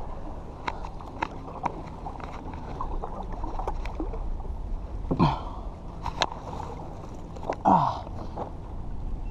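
Kayak paddling: the double-bladed paddle dips and drips, with scattered light clicks and knocks on the plastic hull over a steady low rumble. Two short, falling voice sounds, like grunts, about five and eight seconds in.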